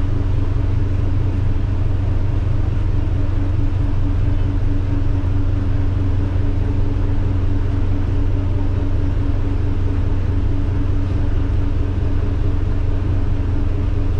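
A ferry's diesel engines running steadily, a loud, even low drone with a constant hum, heard inside the wheelhouse.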